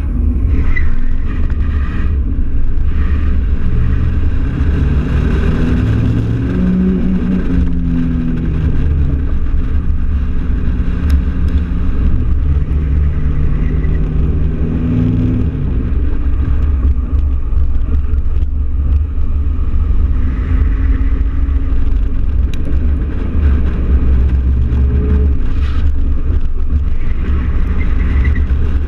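Chevrolet S10 pickup accelerating hard through an autocross course, its engine revving up and falling back several times over a heavy, steady low rumble.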